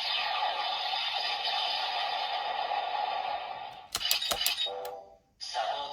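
PDX Laser Raise Riser toy's electronic sound effect playing through its small speaker, then cutting off, with a quick run of sharp plastic clicks from the toy's buttons about four seconds in. Another sound effect starts near the end.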